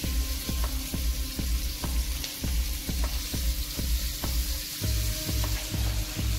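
Oil sizzling in an iron kadhai as shredded cabbage goes in over frying green peas, with a steady run of light clicks two or three times a second.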